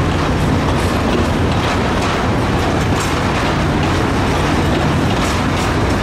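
Narrow-gauge Alishan Forest Railway passenger carriages rolling past at low speed, their wheels clicking over the rail joints, over a steady low drone from the hauling diesel locomotive.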